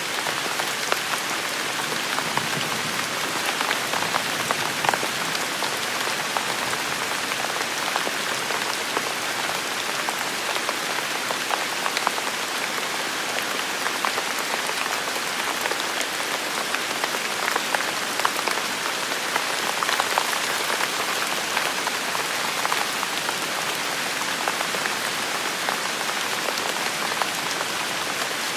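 Steady rain falling, an even hiss with many individual drops pattering on a hard surface.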